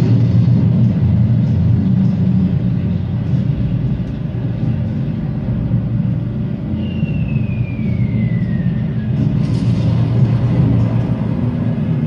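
Played-back air-raid sound effects: a steady low drone of bomber engines, with the descending whistle of a falling bomb about seven seconds in, followed by a short burst of hiss.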